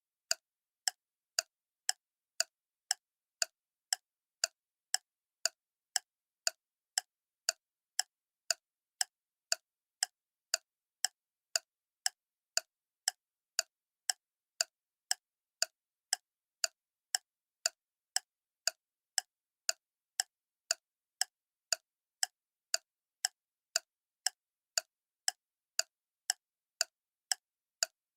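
Clock ticking steadily, a little under two crisp ticks a second, each tick sharp and short.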